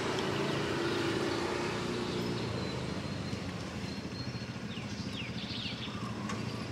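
A motor vehicle's engine running steadily and slowly fading away, as if passing by. A few faint high chirps come about five seconds in.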